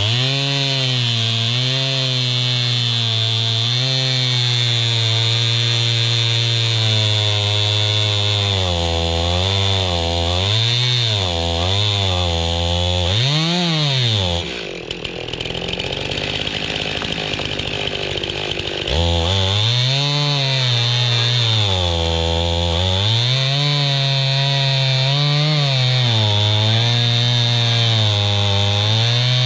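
Gas chainsaw cutting down through a log that is bridged off the ground, to take the tension off it. The engine pitch wavers as the chain bites under load. It eases off for a few seconds about halfway through, then goes back to full throttle in the cut.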